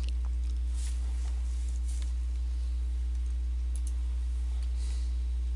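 Steady low electrical hum with a few faint, scattered clicks of a computer mouse.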